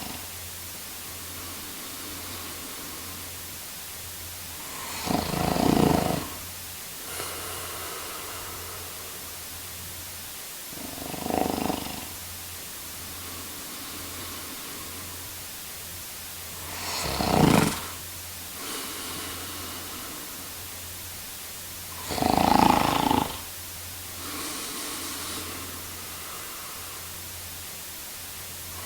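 A man snoring in his sleep: four loud snores, one about every five to six seconds, each followed by a fainter, longer breath sound.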